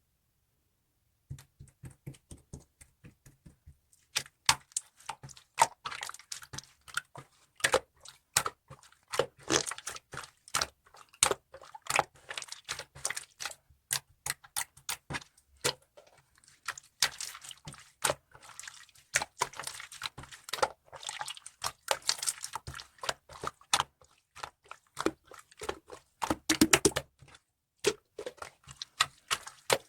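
Slime being squeezed, poked and stretched by hand, making a rapid run of sticky clicks and small wet pops with brief squelches. It starts after about a second of silence, with a thick cluster of clicks near the end.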